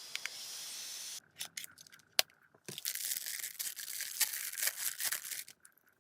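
Packaging being handled while unboxing: a steady hiss for about a second, a few sharp clicks, then about three seconds of dense crackling and tearing.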